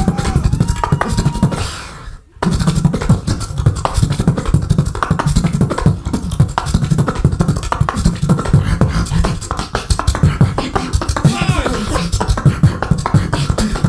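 Beatboxer performing into a cupped handheld microphone through a PA: a fast, dense kick-and-snare rhythm with heavy bass, cut by a brief dead stop about two seconds in, with a few gliding vocal tones laid over it near the end.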